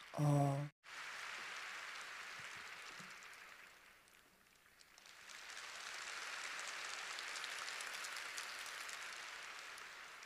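Concert audience applauding: steady clapping that fades into a brief lull about four seconds in, then builds again.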